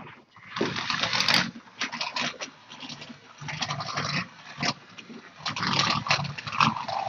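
Small robot car's two DC gear motors whirring in uneven bursts as it drives across the floor, speeding up, stopping and turning, with rattling from its wheels and chassis.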